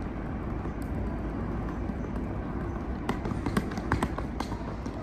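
Footsteps on a hard stone platform floor, a short run of sharp steps about three seconds in, over a steady low rumble.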